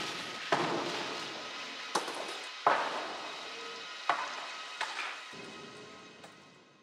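Sampler soundscape made from processed field recordings: a hissy wash with faint steady tones, struck by about five sharp, irregular knocks, the whole fading out to silence at the end.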